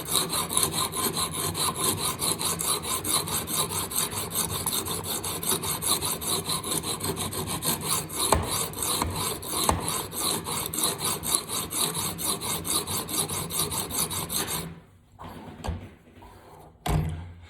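Coarse abrasive stone on a TSPROF guided knife sharpener stroked rapidly back and forth along a steel knife edge: a steady, even rasping scrape, many strokes a second, grinding the bevel on the blade's second side. The stroking stops about fifteen seconds in, leaving only a few light knocks.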